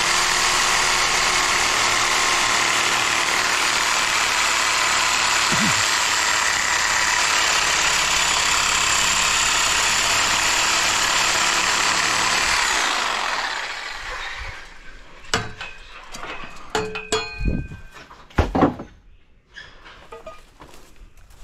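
A loud, steady machine runs for about 13 seconds and winds down, followed by a series of scattered knocks and clinks of handled metal.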